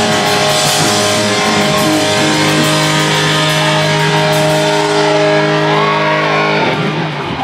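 Live rock band with electric guitar playing the final bars of a song, then holding one last chord that rings steadily for about four seconds before stopping near the end, as the crowd begins to cheer.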